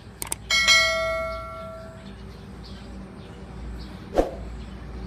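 Subscribe-button sound effect: two quick mouse clicks, then a bright notification-bell ding that rings out and fades over about a second and a half. About four seconds in comes a single brief low thud.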